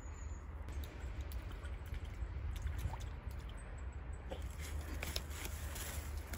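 Faint lapping and small splashes as a puppy dips its muzzle into pond water to drink, with a run of small clicks in the second half. A steady low rumble lies underneath.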